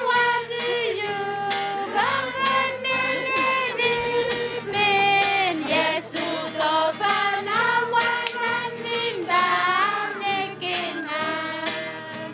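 A group of voices singing together, children's voices prominent, over a regular beat of sharp percussive clicks.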